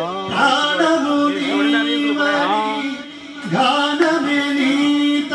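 A man singing into a microphone: a long ornamented phrase in a classical-style devotional film song, with winding, bending melodic runs over a steady held note underneath. The singing drops off briefly about three seconds in, then resumes.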